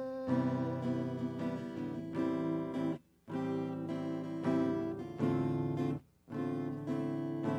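Steel-string acoustic guitar strumming chords with no voice, with two short breaks about three and six seconds in.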